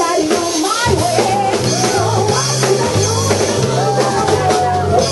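Live rock band music: a drum kit with cymbals and a steady bass line under a singing voice, which holds one long note near the end.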